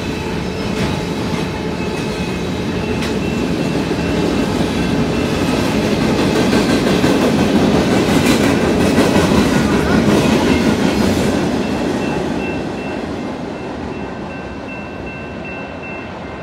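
Freight train of tank cars and covered hoppers rolling past on the rails, a steady heavy rumble that swells to its loudest about halfway through and then eases off near the end.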